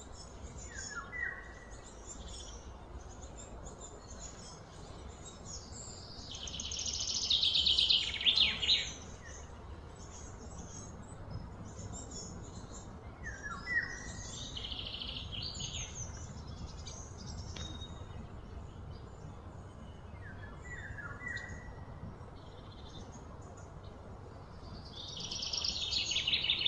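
Wild birds calling outdoors: short falling chirps a few times, and twice a loud, rapid, high-pitched trill that swells over two to three seconds. A low steady rumble of background noise lies underneath.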